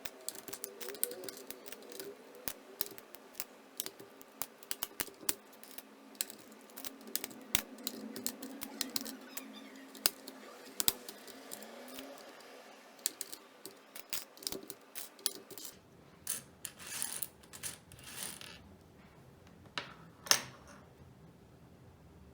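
Irregular plastic clicks and taps from a Keychron K1 mechanical keyboard being handled and cleaned, with a few short scratchy sounds about three-quarters of the way through and one sharper click near the end.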